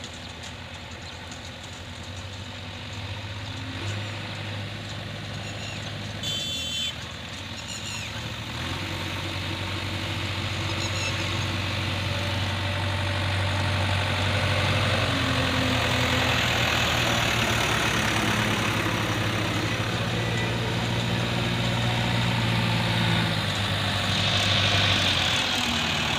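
Diesel engine of a JCB 3DX backhoe loader running steadily while it works, slowly getting louder. A short high-pitched beep about six and a half seconds in.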